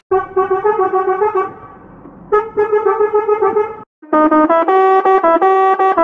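Truck horn sound effect edited to play a melody of short stepped notes like a brass instrument, in an 'underwater' variation. There is a quieter stretch around two seconds in and a brief break just before four seconds in, after which the notes sound brighter.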